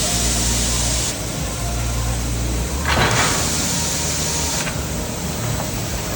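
Band saw cutting machine for maxi tissue rolls running through its cutting cycle: a steady machine hum with a hiss that comes on for a second or so about every three and a half seconds, and a short sharp burst about three seconds in.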